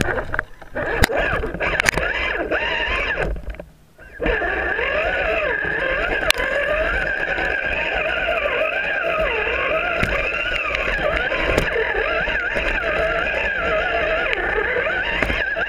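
RC rock crawler's electric motor and gearbox whining, the pitch wavering up and down with the throttle. It cuts out briefly twice in the first four seconds, and a few sharp knocks come from the crawler hitting rocks.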